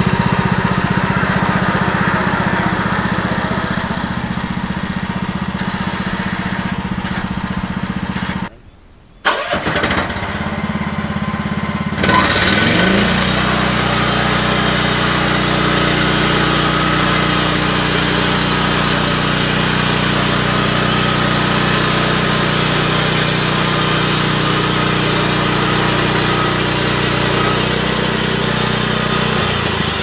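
Pascal Métal portable bandsaw sawmill running steadily, with a brief break about eight seconds in. At about twelve seconds the engine revs up and the band blade saws through a cedar cant, adding a steady high hiss.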